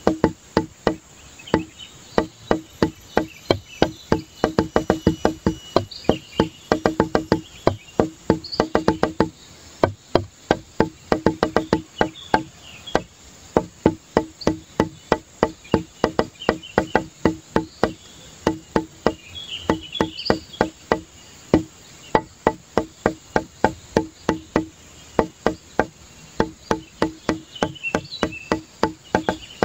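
Background music with a fast, even beat of woody percussive clicks.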